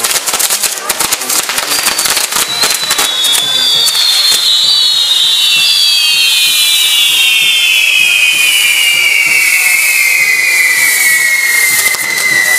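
Castillo fireworks tower burning: dense crackling and popping for the first few seconds, then a steady fizzing hiss of sparks with several whistles sliding slowly down in pitch together for most of the rest, ending near the close.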